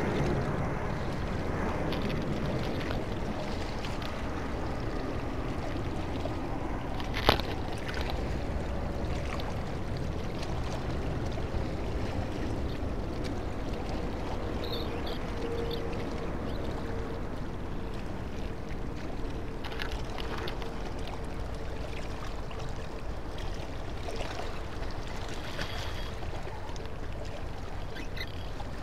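Steady low rumble of wind and lapping harbour water, with one sharp click about seven seconds in. A faint steady hum comes in about halfway through.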